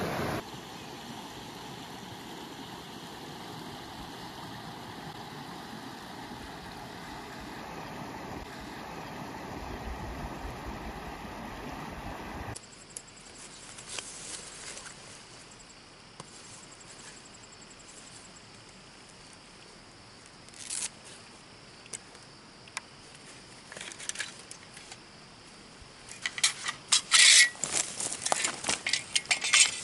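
A steady rushing noise for about the first twelve seconds. Then quieter handling sounds: rustling and scattered clicks as gear is taken from a backpack, ending in a run of loud sharp clicks and scrapes as a folding saw is pulled out and opened.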